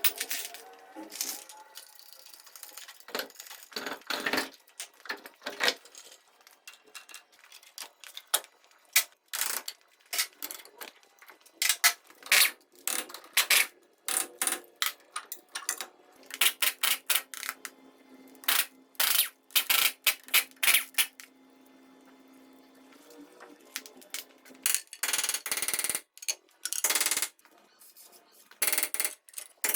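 Metal tools and parts of a KamAZ truck steering knuckle clinking and knocking irregularly as it is taken apart, with a denser run of rapid metallic strikes near the end.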